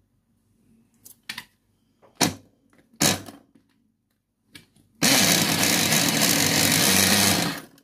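Small electric mini chopper running steadily for nearly three seconds, grinding biscuits into crumbs. It is preceded by a few sharp knocks and clatters as it is handled and its top is fitted.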